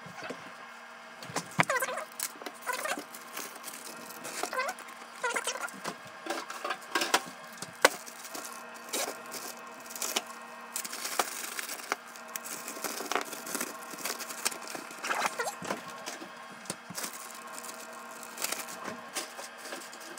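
Kitchen items being handled while a lunch is packed: irregular clicks, knocks and clatter, with a few short squeaks and a steady low hum underneath.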